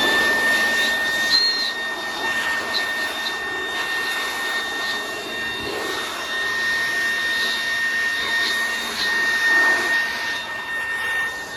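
Shop-Vac wet/dry vacuum motor running with a steady high whine over a rush of air. The secondhand motor is a little dirty, and the owner finds it a little noisy.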